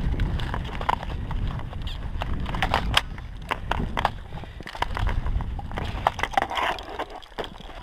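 Footsteps and gear knocking picked up by a helmet-mounted action camera: a low rumble with many irregular sharp clicks and knocks.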